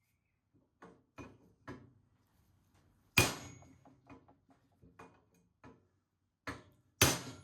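Copper/hide hammer striking a brass drift to drive a new steering-head bearing race into the frame, worked around the race to seat it in its groove. Three light taps, then scattered softer knocks and two hard ringing blows about three and seven seconds in.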